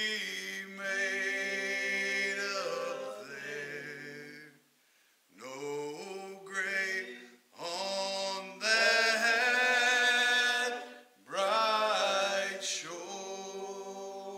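Unaccompanied singing of a slow hymn in phrases of long held notes, with short breaks between them.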